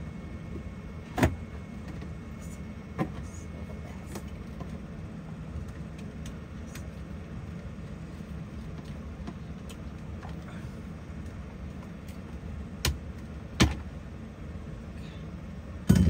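Hard plastic knocks and clunks from a collapsible portable washing machine and its plastic spin basket being handled and pushed down: a sharp knock about a second in, another about three seconds in, and two close together near the end. A steady low hum underneath.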